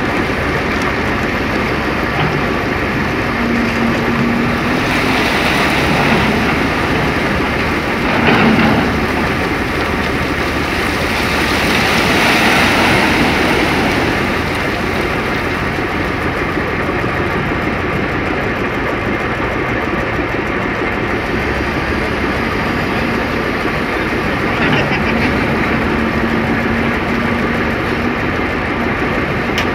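Caterpillar 375 L hydraulic excavator's diesel engine running steadily under load as its bucket digs and scrapes into a rock face. Several louder rushes of rock grinding and tumbling down come through, the longest about halfway through.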